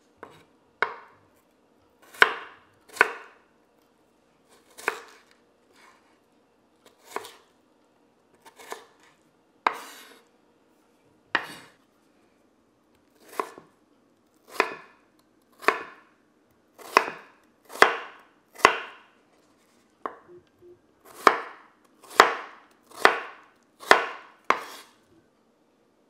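Chef's knife cutting through peeled raw potato and knocking on a wooden cutting board: about twenty single, unhurried cuts roughly a second apart, coming a little faster near the end.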